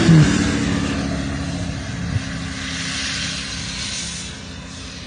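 An off-road vehicle's engine held at high revs, a steady drone with a hiss over it that slowly fades.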